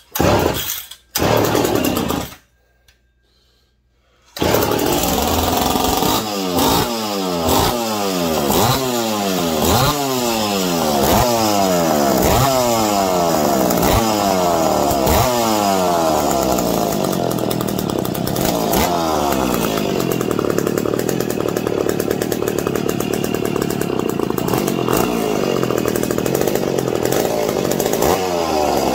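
McCulloch PM 700 two-stroke chainsaw being pull-started after flooding. A few yanks of the recoil starter come first, then a short pause, then the engine fires about four seconds in. It is revved repeatedly, each rev falling away, and then settles into steady running.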